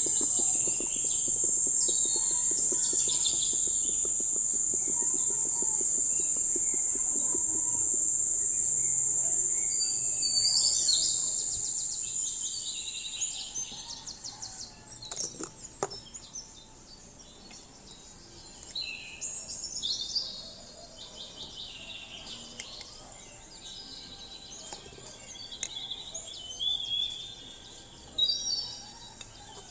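Outdoor ambience of birds chirping, with a steady high-pitched buzz that fades out about halfway through; after that, scattered bird chirps and calls are the main sound.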